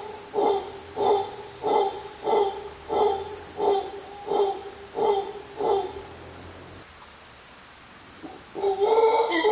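Mantled howler monkey giving a rhythmic series of short grunting calls, about one and a half a second, which stop about six seconds in. Near the end a louder, continuous howl starts. A steady high insect buzz runs underneath.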